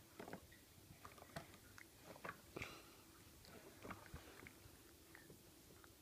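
Faint small wet clicks and smacks of a baby chewing and mouthing cheese taken from an adult's fingers, scattered and irregular, busiest in the middle.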